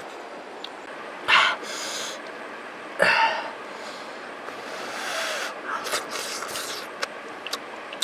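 A man eating grilled snakehead fish with his fingers: loud mouth and breath sounds, twice in the first few seconds and again in a longer rough stretch later, over a steady background hiss, with small sharp clicks near the end.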